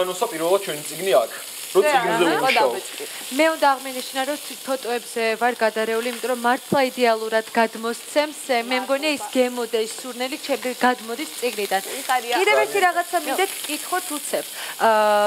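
A woman talking steadily, with a continuous sizzle of food frying in a pan underneath.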